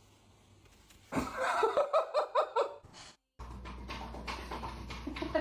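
A person laughing in a quick run of short bursts, then, after a brief cut, a steady low hum with scattered clicks and knocks.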